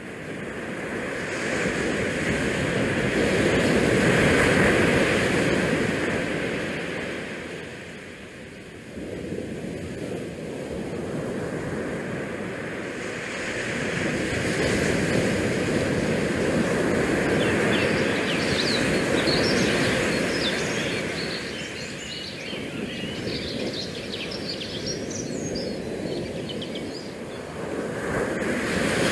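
Outdoor shoreline ambience: wind on the GoPro's microphone mixed with bay water washing against the rocky riprap, swelling and easing every several seconds.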